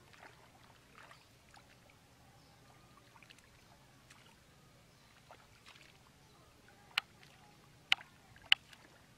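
Hands working in shallow muddy water: faint sloshing and squelching, then three sharp slaps or clicks in the last two seconds.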